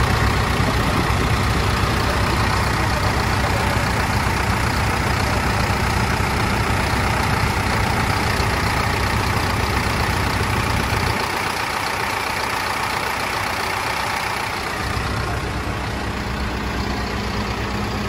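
Backhoe loader's diesel engine idling steadily, heard close to the engine bay. The deep rumble thins for a few seconds past the middle, then returns.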